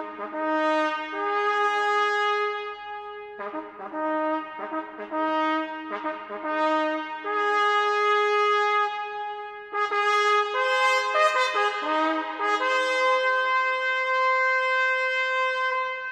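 Solo trumpet playing a ceremonial call of separate held notes, with a quick run of short notes about two thirds of the way in, ending on a long held note.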